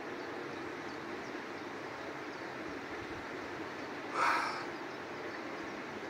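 River water rushing steadily, with a brief louder burst of sound about four seconds in.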